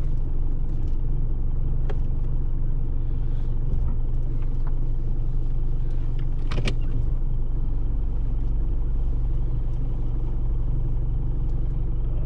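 Steady low rumble of a 4WD's engine and running gear, heard from inside the cabin, with one short sharp click about six and a half seconds in.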